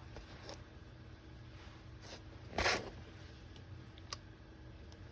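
Quiet handling noises over a faint low hum: a few light clicks and one short scrape or rustle about two and a half seconds in.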